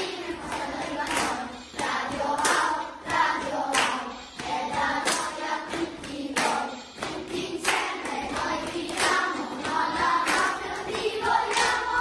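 A choir singing a song over a steady beat of sharp handclaps: the radio programme's theme tune.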